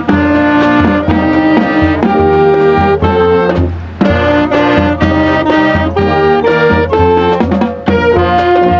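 High school marching band playing: brass carrying the tune over drums, the music breaking off briefly twice.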